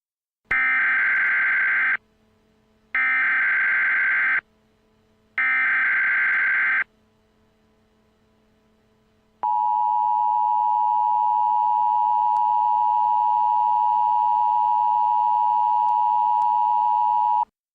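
Emergency Alert System tones: three warbling SAME digital header bursts, each about a second and a half long, then the steady two-tone EAS attention signal (853 and 960 Hz together) for about eight seconds, which cuts off sharply. The sequence announces a new alert message.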